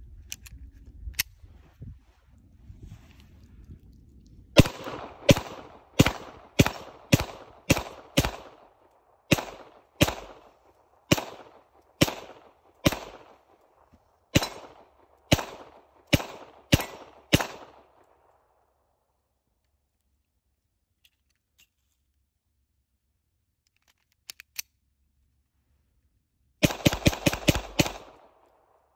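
Beretta 92 pistol fitted with a muzzle compensator being fired: after a few faint handling clicks, a string of about eighteen shots about a second or less apart, each ringing briefly. After a pause, a much faster string of shots comes near the end.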